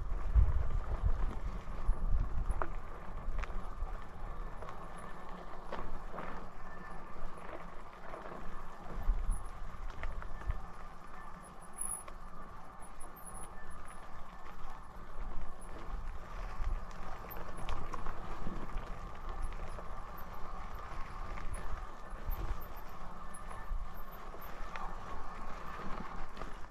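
Wired Cruiser e-bike ridden over a rutted dirt trail: a steady whine from its electric motor over an uneven low rumble, with knocks and rattles as the tyres and frame jolt over bumps.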